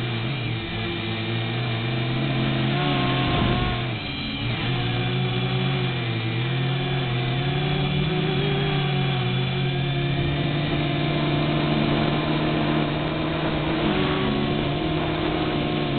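Quadcopter motors and propellers buzzing steadily in flight, the pitch dipping and rising a few times as the throttle changes.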